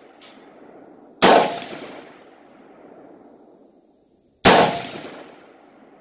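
Two shots from an AR-15-style rifle, about three seconds apart, each a sharp crack followed by an echo that dies away over about a second.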